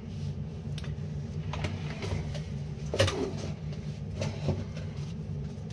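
Steady low hum of an electronic load tester's cooling fan, with a few light clicks and knocks from handling things on the bench.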